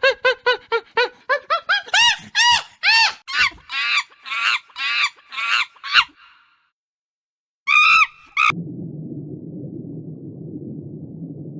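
An animal calling in a fast series of short, pitched, honking calls that slow and rise in pitch, then stop. After a brief pause comes one more call, followed by a steady low rumbling noise.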